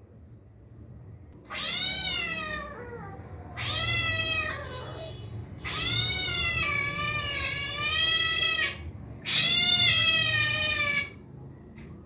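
Cat meowing: four drawn-out, wavering meows, the third the longest at about three seconds, the last the loudest.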